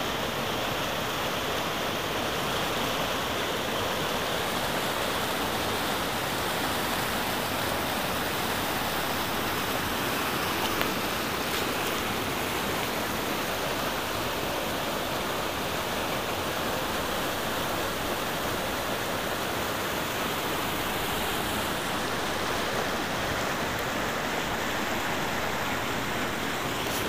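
Mountain stream rushing and churning in white-water over granite slabs, a steady roar of water; the flow is high, which the hikers put down to a floodgate opened upstream.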